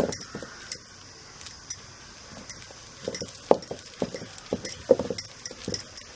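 Boiled chana dal being pounded and ground in a stone mortar with a heavy stone pestle: a run of irregular dull knocks, several a second, with a light metallic clinking from the bangles at each stroke.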